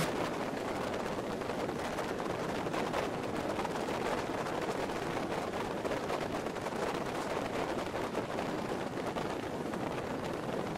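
Fast patrol boat running at speed on open water: a steady rushing, crackling noise of hull spray and wind buffeting the microphone, with no clear engine tone.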